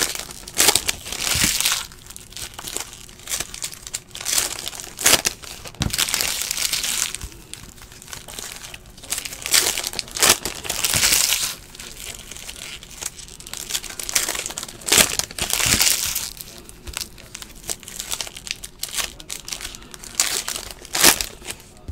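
Foil wrappers of 2017-18 Donruss Basketball card packs being torn open and crinkled by hand, in repeated irregular bursts of crackling with sharp snaps.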